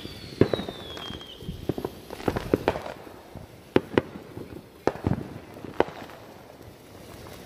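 Ground fountain firework spraying sparks: a high whistle, slowly falling in pitch, fades out about a second and a half in, followed by irregular sharp pops and crackles.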